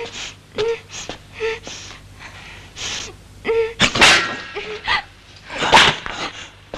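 A young woman's voice in distress: short breathy gasps and brief whimpers, with a sharp, loud intake of breath about four seconds in and another near six seconds.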